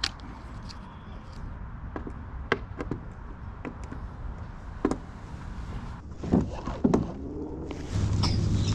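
Scattered light clicks and knocks of hands working on a kayak motor mount and its cables, with a few sharper knocks; a steady low hum starts near the end.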